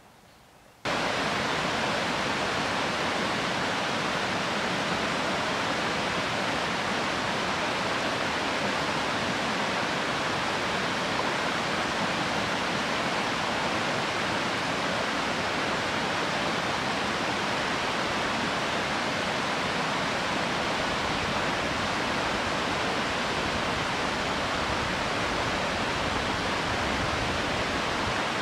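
Steady rush of a mountain creek running over rocks, starting suddenly about a second in.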